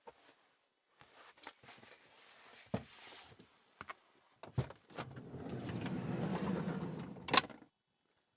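Things being handled at close range: scattered clicks and knocks, then a rumbling, sliding noise for about two and a half seconds that ends in a sharp click.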